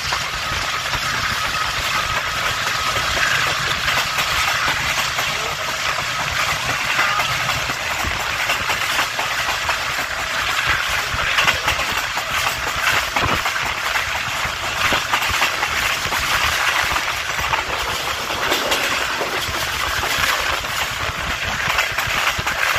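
8 Down Tezgam Express passenger train running at speed, heard from on board: a steady rushing rumble of the moving coaches with a constant scatter of clicks and rattles from the wheels on the track.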